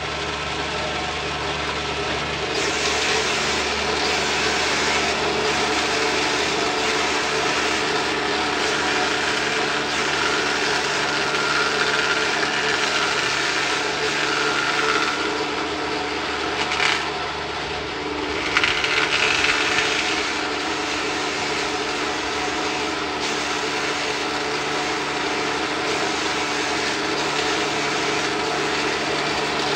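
Small electric wood-cutting machine running with a steady motor hum while long thin wooden strips are fed through it. The cutting makes a continuous rasping noise that dips briefly a little past halfway.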